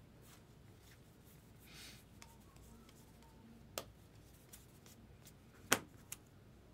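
Baseball cards being handled: a soft slide of card stock about two seconds in, then three sharp clicks, the loudest shortly before the end.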